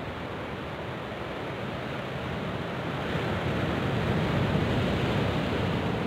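Sea surf washing against rocks, with wind on the microphone; the wash grows louder about halfway through.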